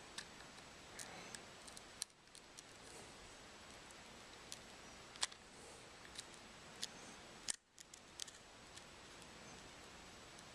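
Faint scattered clicks and ticks of a razor blade working under the cracked glass of a Samsung Galaxy S3 screen, prying it loose, over a low steady hiss.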